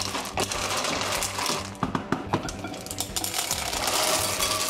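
Snails in their shells clattering against a nonstick pan as they are stirred with a wooden spoon in a hot coconut-milk sauce, over a steady hiss from the pan. Near the end the shells rattle as the snails are poured out of the pan into a ceramic bowl.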